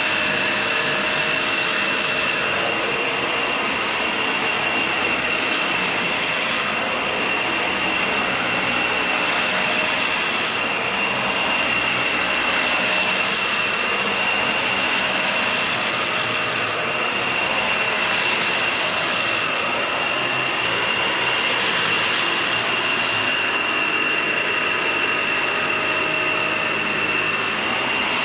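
Vacuum cleaner running over a shaggy rug: a steady rushing noise with a high whine, swelling and easing every few seconds.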